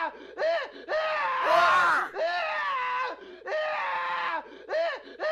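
A man screaming in a series of about six cries, some short and some held for about a second, each dropping in pitch at the end.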